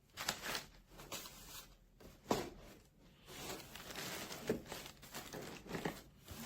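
Packaging being handled while items are taken out of a box: paper and plastic rustling and crinkling in short, irregular bursts.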